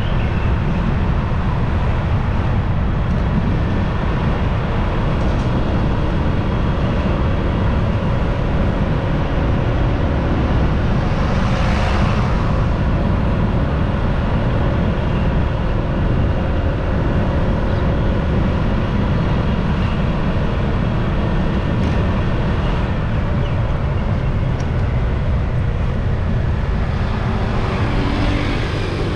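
Motorbike on the move: a steady low rush of wind and road noise with the engine running underneath. A louder swell of noise comes about twelve seconds in and again near the end.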